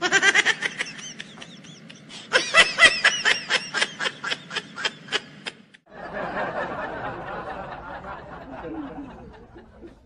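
Comedy laugh-track sound effect: rapid cackling laughter in short, even pulses of about four a second for the first five seconds or so, then a softer, blurred stretch that fades out.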